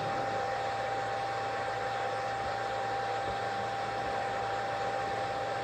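Hot-air blower of a BGA rework station's upper heater running, a steady rush of air with a steady high tone over it.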